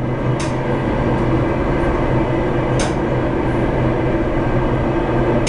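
Passenger train running at speed, heard from inside the carriage: a steady rumble of wheels on rails with a low hum underneath. A short sharp click comes about half a second in and again near three seconds.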